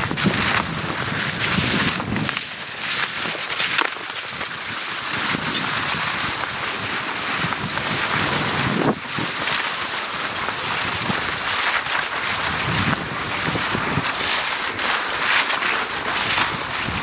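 Wind buffeting the microphone in uneven low gusts over a steady hiss, the sound of cross-country skis gliding along groomed snow tracks.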